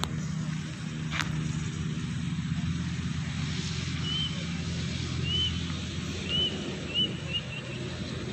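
A steady low engine drone, with a bird giving a series of short high chirps from about halfway through, coming quicker toward the end.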